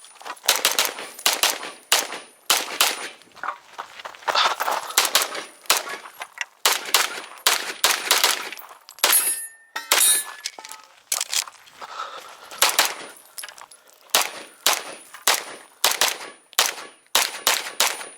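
Compensated 9mm Major Open-division race pistol, a Limcat Phantera, firing rapid strings of shots with short pauses between the strings.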